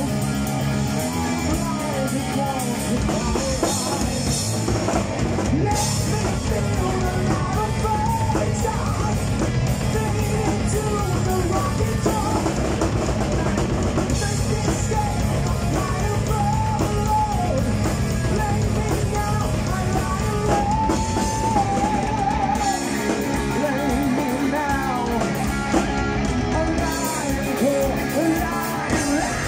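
A heavy metal band playing live: distorted electric guitar, bass guitar and a drum kit, with a male singer on vocals.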